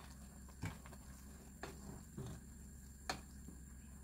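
A wooden stirring stick knocking against a metal cooking pot as noodles in sauce are stirred: about four faint, sharp clicks spaced roughly a second apart.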